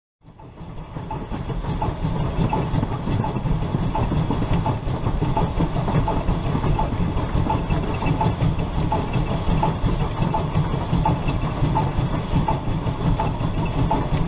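Dubbed-in recording of a full-size steam locomotive running: steady hiss and rumble with a regular beat about two and a half times a second. It fades in over the first two seconds.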